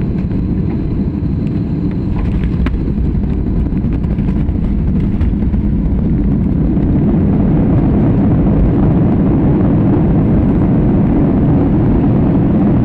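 Jet airliner heard from inside the cabin during the landing rollout: a steady low roar of engines and runway rumble that swells about six seconds in, with the ground spoilers up, as reverse thrust builds.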